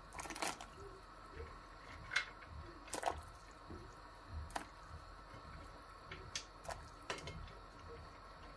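Dried mantı pasta being dropped into a pot of boiling water: irregular small clicks and splashes.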